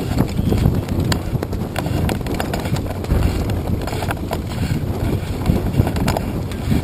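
Wind buffeting the camera's microphone in a steady low rumble, with scattered sharp knocks and clicks at irregular intervals.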